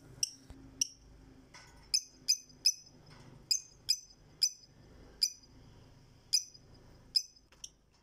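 Fischer's lovebird giving about a dozen short, sharp, high-pitched chirps at irregular intervals, very loud.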